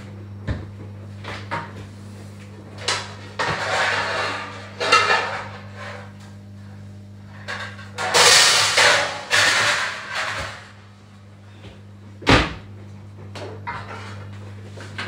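Kitchen handling noises: irregular rustling and clattering with scattered knocks, the sharpest about twelve seconds in, over a steady low hum.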